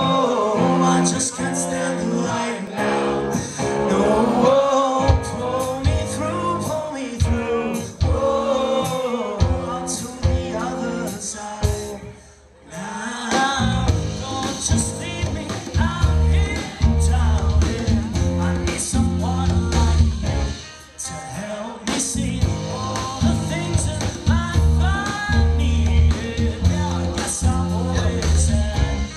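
Live rock band playing, with male singing over electric guitar. The music drops out briefly about twelve seconds in, then comes back with a heavier bass.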